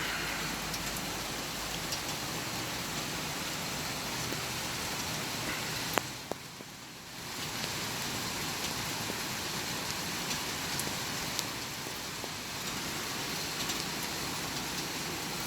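Steady rain falling, an even hiss with scattered faint drop taps. A sharp click comes about six seconds in, and the sound drops away for about a second and a half after it.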